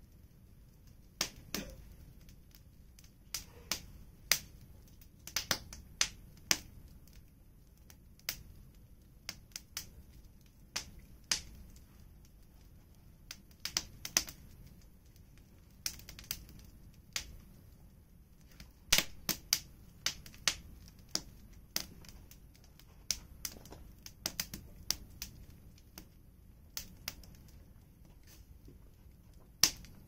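Firewood fire crackling: irregular sharp pops and snaps, sometimes several in quick succession, over a faint low background.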